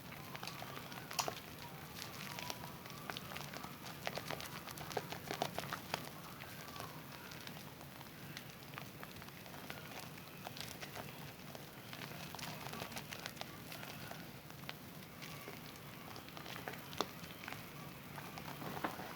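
Zest bar soap being lathered in wet hands: a steady wet crackle of many small, irregular clicks and squishes from the foam.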